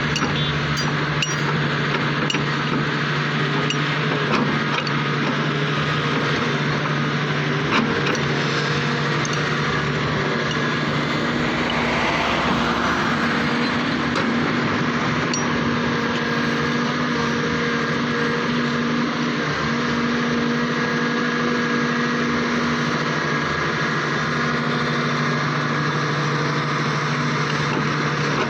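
Heavy diesel earthmoving machinery running steadily, an excavator loading rock into a dump truck, with a few short knocks of rock.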